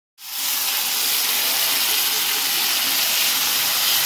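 Hot onion-and-spice masala in a heavy kadai sizzling as pressure-cooked pork and raw plantain are tipped in and stirred: a steady, even hiss.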